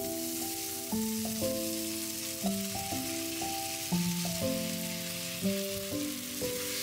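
Thin rice noodles sizzling in a hot frying pan as sauce and a splash of water hit the pan and chopsticks turn the noodles: a steady hiss. Background music with a melody of held notes plays over it.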